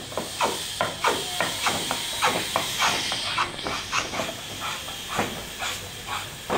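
Quick rhythmic scraping strokes of a hand tool working the face of a willow cricket bat blade, about three to four strokes a second.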